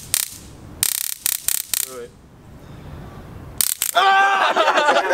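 Handheld stun gun crackling in rapid clicks, in a dense burst about a second in and a short one near the end. A man then cries out loudly as he is shocked.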